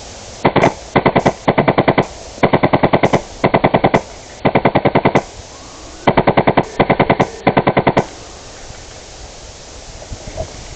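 HPA-powered airsoft M249 with a Wolverine Inferno Gen 2 engine firing full-auto in about nine short bursts, each a rapid, even string of sharp pops. The firing stops about eight seconds in.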